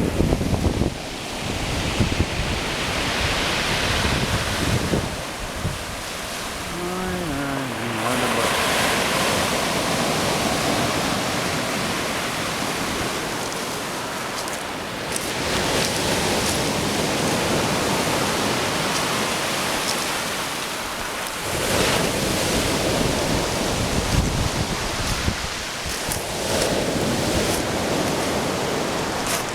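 Stormy sea surf: waves breaking and washing in, swelling in repeated surges, with wind buffeting the microphone.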